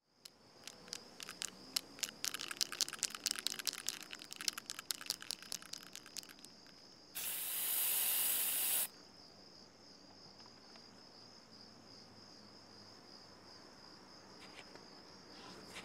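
An aerosol spray-paint can rattling in irregular clicks as it is shaken, then spraying in one hiss of just under two seconds. Steady cricket chirring runs underneath throughout.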